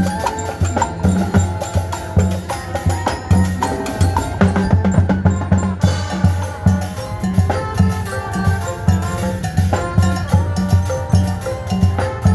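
Live band music: a steady, driving drum beat under a melody of sustained pitched notes.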